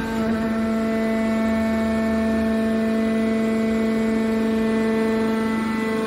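Hydraulic power unit of a steel baler shear running: a steady hum that holds one even pitch.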